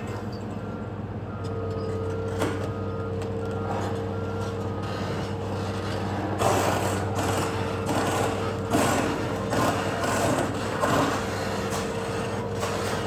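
Excavator engine running with a steady whine while the steel-and-timber bridge span is dragged, scraping and grinding in repeated bursts from about six seconds in. A few short high beeps sound in the first few seconds.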